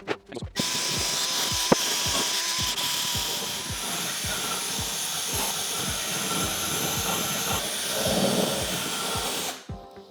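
Aerosol can of engine enamel spraying in one long continuous hiss that starts about half a second in and stops just before the end. Background music with a steady beat plays under it.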